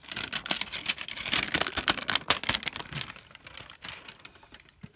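Plastic shrink-wrap being pulled off a metal trading-card tin: a dense run of crinkling and crackling that thins out after about three seconds.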